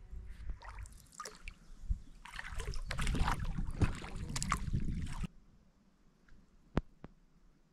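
Kayak paddle strokes splashing in calm river water, with dripping and sloshing against the hull, for about five seconds. The sound then cuts off suddenly, leaving a faint background with a few sharp clicks.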